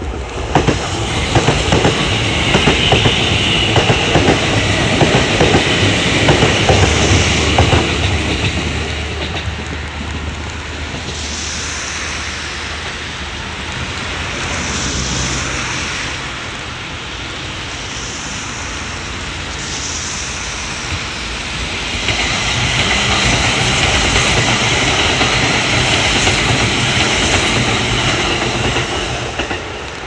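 Two Kintetsu Kyoto Line trains pass the level crossing in turn, wheels clattering over the rail joints: one during the first third, the next near the end, with a quieter stretch between. The crossing's warning bells ring throughout.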